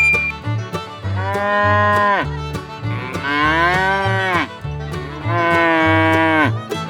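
Cow mooing three times in long calls, each dropping in pitch at the end, over background music with a steady beat.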